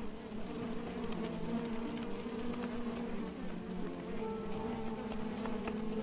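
Honeybees buzzing in and around an open top bar hive: many wingbeat hums at slightly different pitches overlap into a steady drone.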